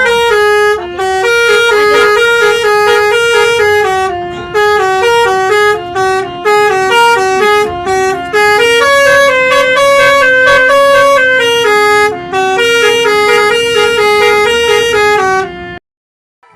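Bus telolet horn, a set of musical air horns, playing a melody of held notes that step up and down in pitch, with short breaks between phrases. It cuts off abruptly near the end.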